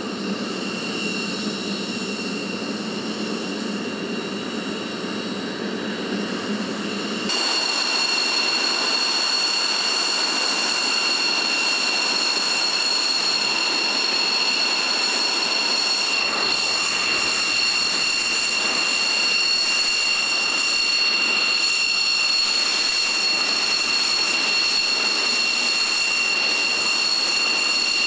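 Jet engine idling on a carrier flight deck: a steady high whine over a rushing hiss. About seven seconds in the sound changes abruptly, the low rumble dropping away and the whine becoming louder and clearer.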